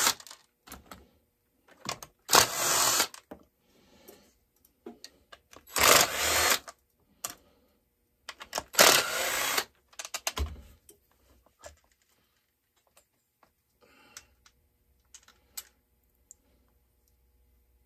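Cordless drill-driver spinning out the screws of a Farmertec MS660 chainsaw's recoil starter cover, in three short bursts about three seconds apart. These are followed by light clicks and knocks of the cover and parts being handled.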